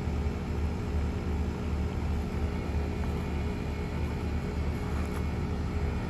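Outdoor air-conditioning condensing unit running under a refrigerant pressure check: a steady low hum of compressor and fan.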